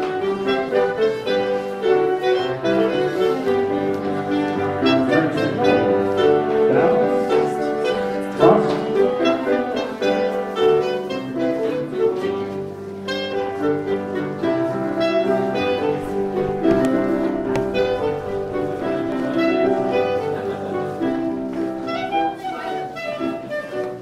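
Live dance band playing an English country dance tune in a steady rhythm, with fiddle and other bowed strings to the fore.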